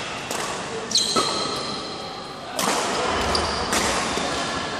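Badminton rally: rackets striking the shuttlecock, about five sharp hits ringing in a large hall, with short high squeaks of sports shoes on the court floor.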